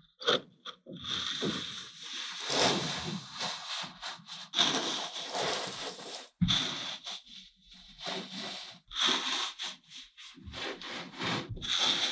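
Kinetic sand being pressed and crushed with a wooden stick: gritty crunching and rubbing in irregular strokes, with a sharp knock about halfway through.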